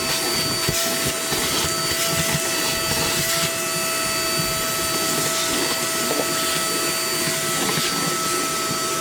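A small electric motor running steadily with a constant whine, holding an even pitch and loudness throughout.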